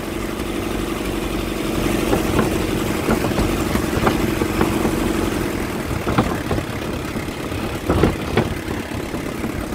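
Truck engine running as the truck drives slowly along a bumpy dirt track, with a steady hum through the first half. In the second half the truck clunks and rattles over the bumps, sharpest about six and eight seconds in.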